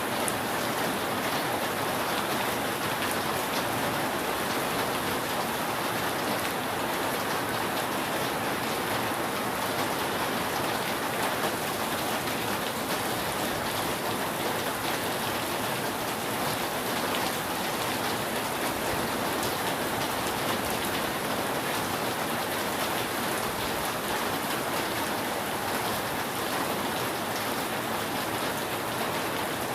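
Steady rain falling on a roof, a dense even patter with scattered individual drop ticks.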